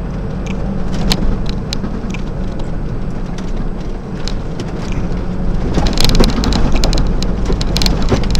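Heavy truck running on the road, heard from inside its cab: a steady low engine drone with road noise and sharp rattles and clicks from the cab. The rattling grows denser and louder about two-thirds of the way through.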